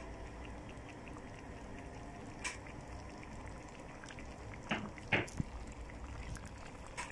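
Chicken, gizzards and liver simmering in sauce in a pan, a low steady bubbling with a few sharp clicks, one about two and a half seconds in and a small cluster around five seconds.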